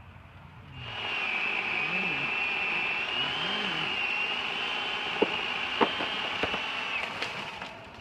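Chainsaw running at high revs, cutting through the ash trunk, with a steady high engine note that cuts off just before the end. There are two short sharp cracks in the second half.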